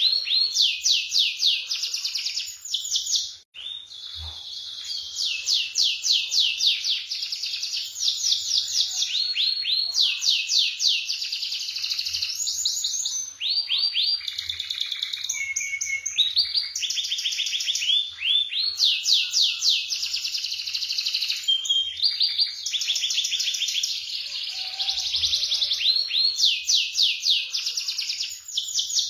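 Domestic canary singing a long song of fast rolling trills, runs of rapid repeated high notes, with brief breaks about three and a half seconds in and near fourteen seconds.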